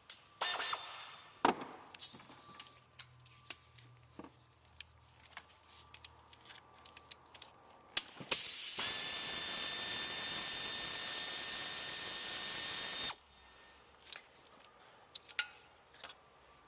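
Scattered clicks and metallic knocks of tools on the engine, then a handheld power tool runs steadily at one speed for about five seconds, a constant whine over a hiss, and stops abruptly.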